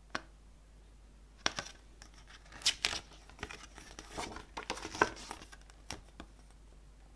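Paper pages of a CD booklet being handled and turned: a single light tick just after the start, then crisp, irregular paper rustles and flicks for about five seconds.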